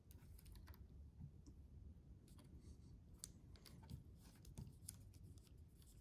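Faint, irregular small clicks and ticks of a hand crimping tool being worked onto brass spade terminals on wires, over a low steady hum.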